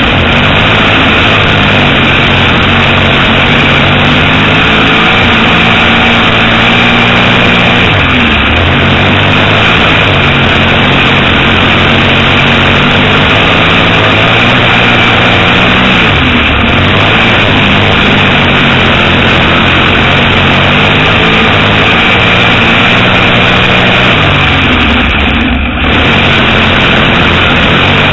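Dirt modified race car's V8 engine, heard very loud from inside the cockpit, running hard at racing speed. Its pitch drops roughly every eight seconds as the driver eases off for a turn, then climbs again down the straights.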